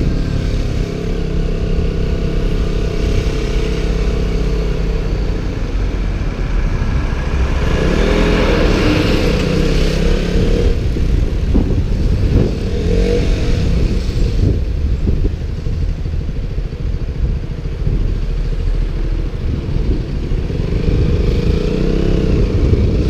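KTM Duke motorcycle engine running on the move, its pitch rising and falling as the throttle opens and closes around the middle, under heavy wind rumble on a GoPro microphone inside its waterproof case.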